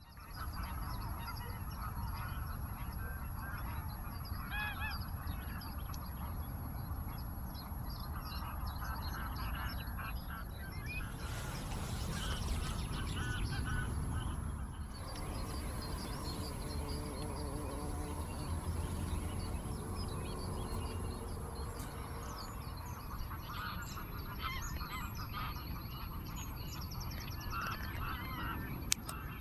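Geese honking and other waterfowl calling repeatedly over a steady low rumble of wind on the microphone, with a single sharp click near the end.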